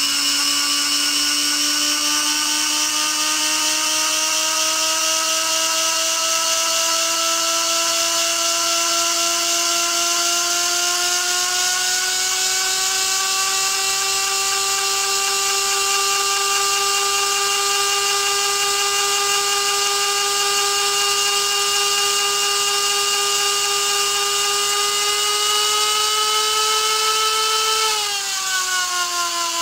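Small acrylic Tesla turbine spinning at high speed, driven through its inlet tube: a high, steady whine with overtones over a hiss. The pitch rises slowly over the first half and holds, then falls suddenly near the end as the rotor slows.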